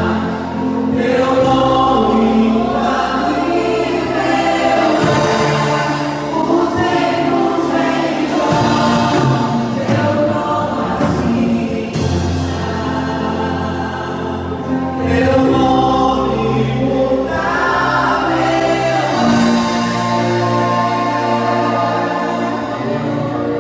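Many voices singing a gospel worship song together, over music with long held bass notes that change every few seconds.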